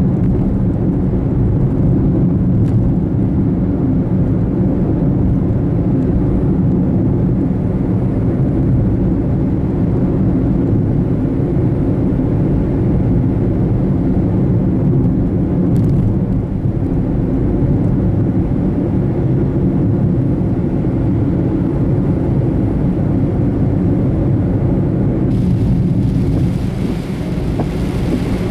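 Steady low rumble of a vehicle on the move, with a hiss joining in near the end.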